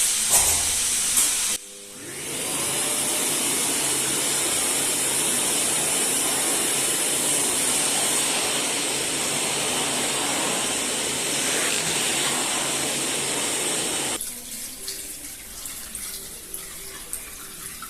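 A vacuum cleaner running with a steady hiss of rushing air as it sucks dust off calcium-silicate (Superizol) boards before they are primed. It cuts out briefly near the start, winds back up, and stops about fourteen seconds in.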